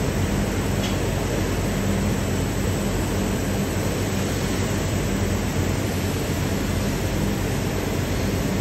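Steady machine noise of an automated robotic tool-processing cell running: an even rushing noise with a low hum underneath that swells and fades a little.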